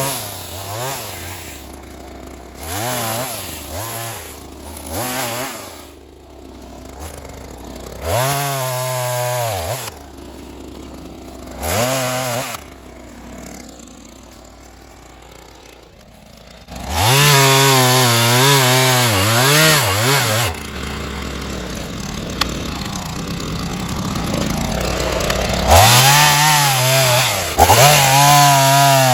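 Ryobi two-stroke gas chainsaw revving in short throttle bursts with idling between, then held at full throttle for two longer cuts through a small tree trunk, one a little past the middle and one near the end.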